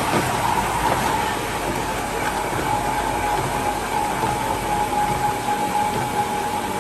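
Heavy machinery running steadily, with a constant high whine over a dense mechanical rumble.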